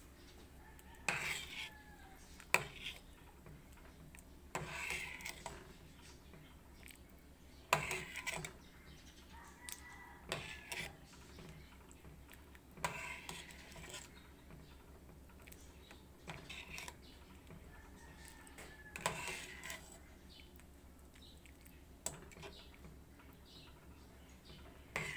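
Metal ladle knocking and scraping against a stainless steel pot while pork broth is stirred, in irregular clinks every one to three seconds.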